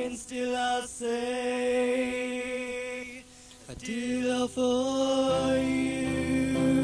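Male voice singing long held notes, nearly unaccompanied, with a short break about halfway through; acoustic guitar comes back in about five seconds in.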